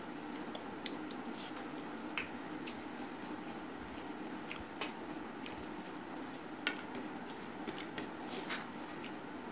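Wet squishing of rice being mixed by hand with curry on a steel plate and eaten, with a few sharp clicks scattered through.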